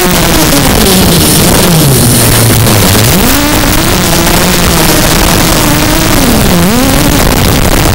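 Zabo 250 quadcopter's motors and 5x4 carbon fiber propellers buzzing in hard flight over a loud rushing hiss. The pitch drops low for a couple of seconds as the throttle comes off, climbs back about three seconds in, and dips sharply once more near the end.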